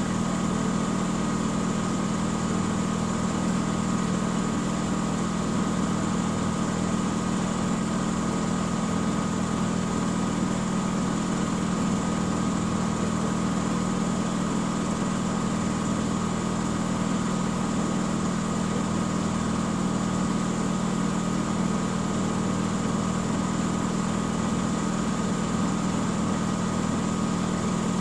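Miele W 5963 front-loading washing machine in its spin cycle, running at a steady high speed: a constant low drone with a faint, steady high whine above it, unchanging throughout.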